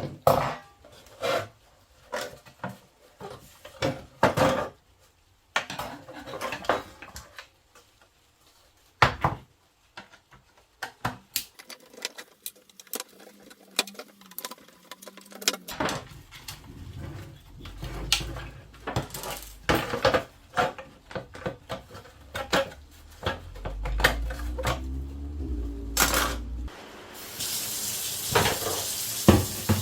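Hard plastic radio parts being handled and washed in a sink: repeated knocks and clatter, then water running from a tap near the end.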